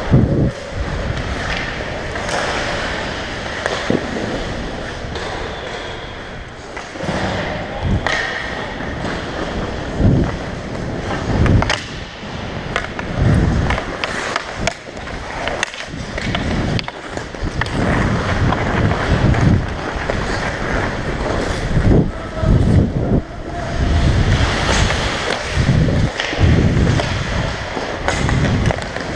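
Ice hockey skate blades scraping and carving on the ice, close up as from a helmet-mounted camera, with scattered sharp clacks of sticks and puck.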